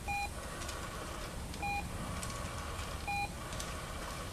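An electronic beeper sounding four short, identical beeps, evenly spaced about a second and a half apart.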